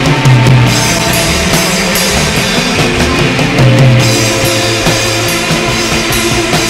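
Loud psychedelic rock music with a drum kit and a strong bass line; a held high note comes in about midway.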